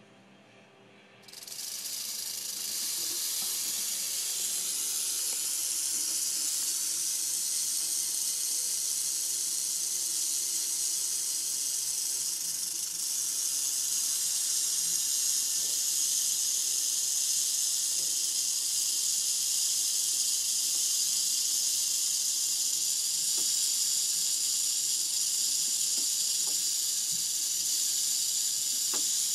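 Mojave rattlesnake rattling its tail: a dense, high buzzing hiss that starts abruptly about a second in and then keeps going without a break.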